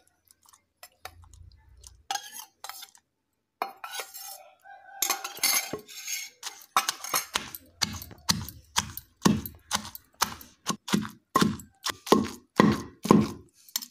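Pestle working in a stone mortar. First come scattered knocks and scrapes as fried green chillies and tomatoes go in, then from about halfway a steady pounding at about two strikes a second as they are crushed into a chutney paste.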